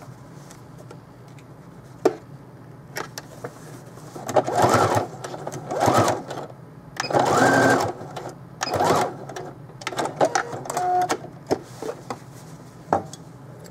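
Electric sewing machine stitching in a series of short bursts, going forward and back in reverse to sew a short tacking stitch through a gathered elastic waistband casing, which keeps the elastic flat and the gathers even. A sharp click comes about two seconds in, and the stitching bursts start about four seconds in.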